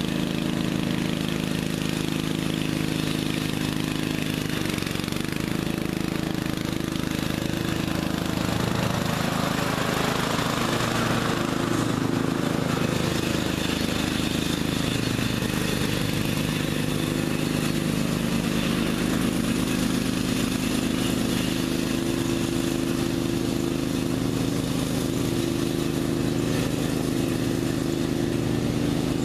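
Bolens riding lawn tractor's 13.5 hp Briggs & Stratton engine running steadily as the tractor drives across the grass, swelling as it passes close about a third of the way in, then carrying on at the same steady pitch as it moves off.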